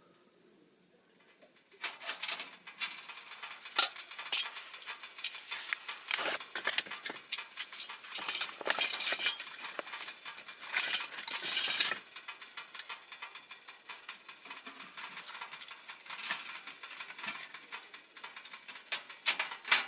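Handling noise: a busy run of clatter, clicks and rustling, like utensils or gear being moved about. It starts about two seconds in and is loudest between about eight and twelve seconds.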